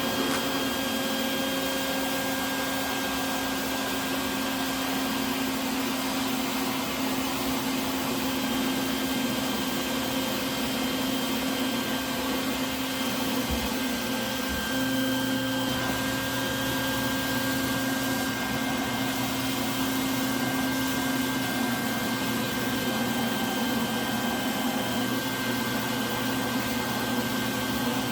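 A small electric motor running steadily, a constant whir with a hum that shifts slightly about halfway through.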